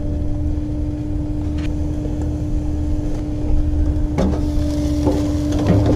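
Portable propane grill burning on full gas with its lid shut: a steady low hum carrying a faint constant tone. About four seconds in comes a metal clank as the grill's lid handle is gripped, followed by a few small knocks.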